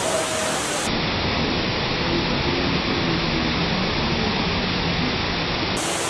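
Steady rushing roar of a waterfall pouring onto rock and shallow water, with faint voices of people in the background.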